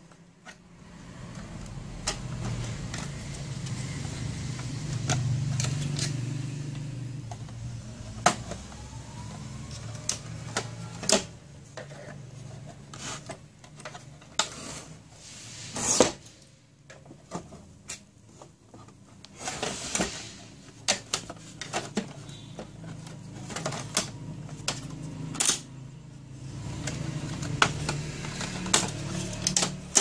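Plastic clicks and snaps of an HP LaserJet P1102 laser printer's side cover being worked off its latches, irregular throughout, the sharpest about halfway through. A low steady hum runs underneath, strongest in the first few seconds.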